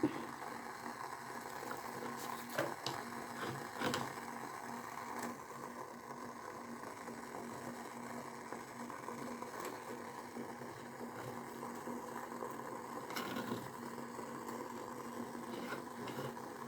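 A steady low hum holding one even tone, with a few scattered light clicks and knocks.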